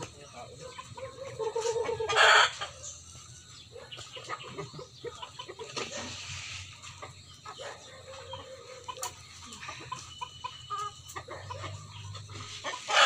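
Caged chickens clucking close by in many short calls, with one loud call about two seconds in and another brief loud call at the very end.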